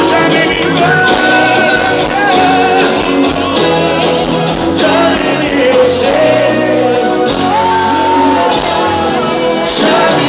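Loud music with singing voices and shouting.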